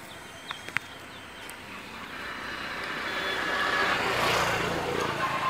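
A motor vehicle's engine noise, growing steadily louder over a couple of seconds as it draws near. Two sharp clicks come about half a second in.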